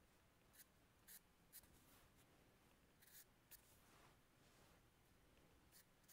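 Faint scratching of a dark drawing pencil on textured paper, in short strokes with a pause of about two seconds past the middle while the pencil is lifted.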